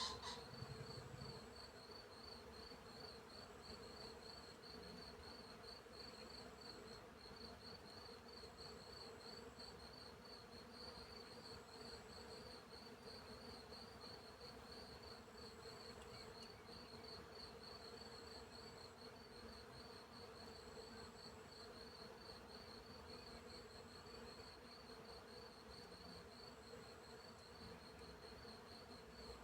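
Field insects: crickets chirring in a fast, even pulse, with a higher insect trill coming in short stretches every two or three seconds, over a low, steady buzz of bees. A brief click at the very start.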